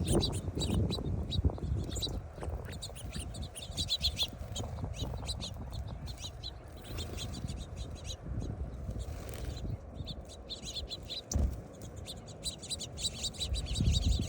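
Small birds chirping in quick, repeated short notes, thinning out briefly past the middle and picking up again near the end, over a steady low rumble.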